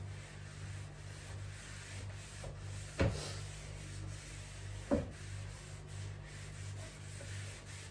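Scrubbing and wiping a refrigerator's surfaces: steady rubbing, with two sharp knocks about three and five seconds in.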